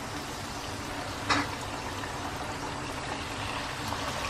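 Puris deep-frying in hot oil in a kadai, a steady sizzling and bubbling. About a second in there is one short sharp clink, from the perforated steel ladle against the pan.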